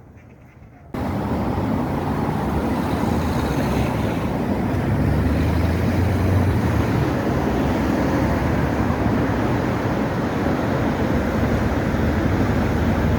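Steady rumble of street traffic that starts abruptly about a second in and then holds.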